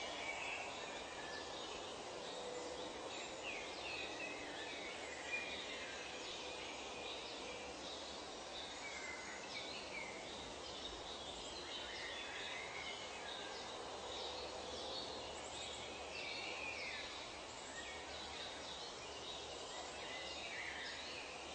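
Tropical forest ambience: many birds calling, with short chirps and whistles overlapping over a steady background hiss.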